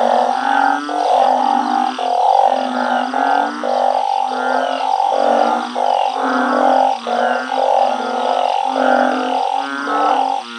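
A chorus of male blunt-headed burrowing frogs (Glyphoglossus molossus) calling: many loud, deep calls of about half a second to a second each, overlapping one after another without a break.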